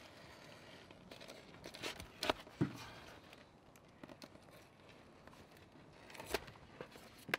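Utility knife cutting through flexible rubber-like flashing membrane, with its paper backing crinkling. The sound is faint, with a few short crackles around two seconds in and again near the end.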